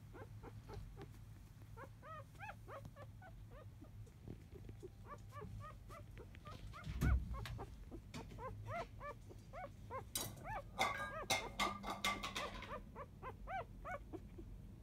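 Four-day-old Labrador retriever puppies squeaking and whimpering in their sleep: many short high peeps that rise and fall in pitch, coming in loose runs. A single thump about seven seconds in, and a busy stretch of rustling and clicking around ten to twelve seconds in.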